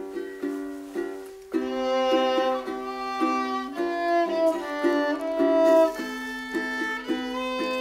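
Background music of string instruments: short plucked notes at first, then a bowed melody of longer held notes comes in about a second and a half in.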